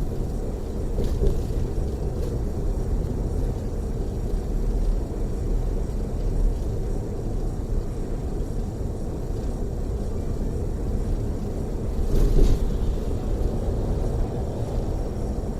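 Steady low rumble inside a moving coach bus: engine and tyre noise on the road, with a brief rattle about a second in and again near twelve seconds.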